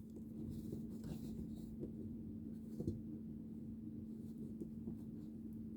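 Faint handling noise: light rustling and a few soft clicks as a plastic building-brick dragon figure is turned over in the hands, over a steady low hum.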